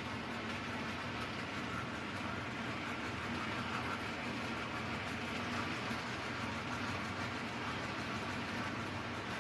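Tyco toy diesel locomotive from the 1959 Coast to Coast train set running steadily around the track: a continuous whirr of its small electric motor and wheels on the rails.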